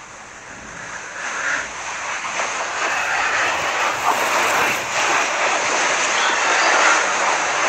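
Steady rushing noise with no clear pitch, fading up over the first few seconds and then holding.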